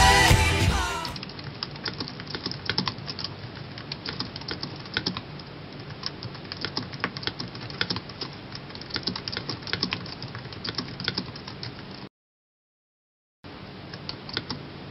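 Typing on a keyboard: irregular key clicks, several a second, stopping for a little over a second near the end before resuming. Rock music fades out in the first second.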